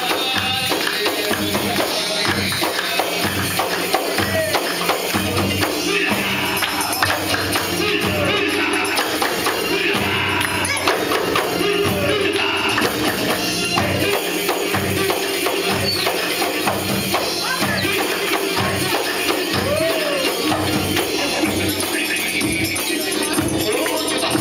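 Live Egyptian folk music: the jingles of a riq (Egyptian tambourine) and the beats of a hand drum keep a steady, quick rhythm under a melody.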